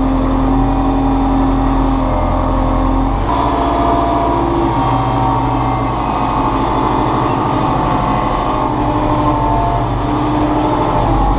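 Kubota M59 backhoe's diesel engine running steadily under hydraulic load while the grapple works, its tone shifting about three seconds in as the load changes.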